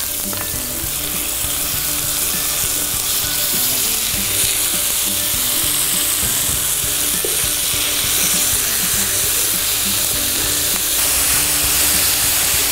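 Chopped onion, red pepper and ground beef frying in hot oil in an electric skillet: a steady sizzle, with a wooden spoon stirring and scraping through the pan.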